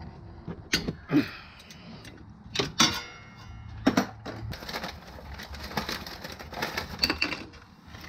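Metal hand tools clanking as they are set down: a few sharp knocks in the first four seconds, one ringing briefly. Then a stretch of quick, light metallic clicking and rattling as tools are handled in a tool case.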